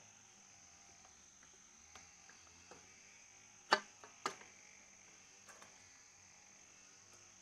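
A few sharp clicks and knocks as the fan's wire guard and plastic blades are handled, the loudest pair about four seconds in, over a steady high-pitched chirring of crickets.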